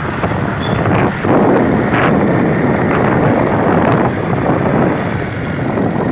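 Wind buffeting the microphone on a moving vehicle, over steady vehicle and road noise, with a few brief knocks.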